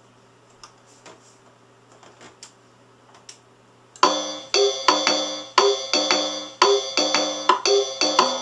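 Casio MT-520 electronic keyboard: a few faint clicks, then about four seconds in it starts playing a loud electronic rhythm with pitched notes, about two strikes a second.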